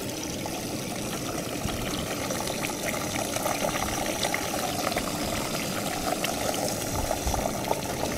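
Beaten egg poured into hot oil in a wok, frying with a steady sizzle and fine crackling.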